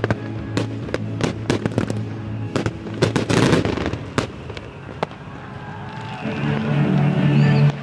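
Fireworks shells bursting in a rapid run of sharp bangs, with a dense crackling burst about three seconds in. The bangs then stop, and music with held chords grows louder over the last two seconds.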